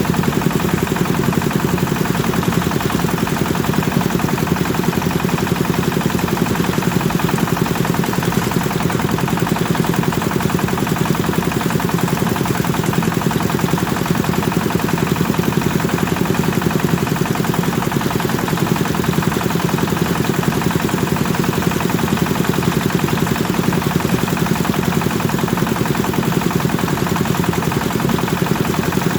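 Kubota engine of a rice threshing machine running steadily at speed, with a fast, even beat.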